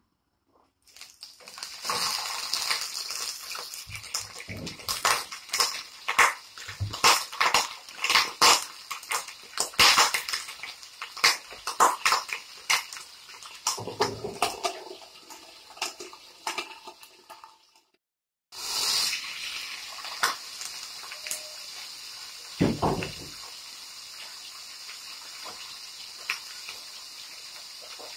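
Hot oil in a frying pan spitting and crackling, with many sharp irregular pops. After a break it settles into a steady sizzle as a boiled whole chicken fries, with one dull thump partway through.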